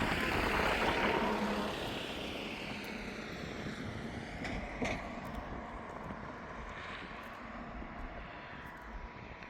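A passing vehicle's noise, loudest at first and fading steadily as it moves away, with one sharp click about five seconds in.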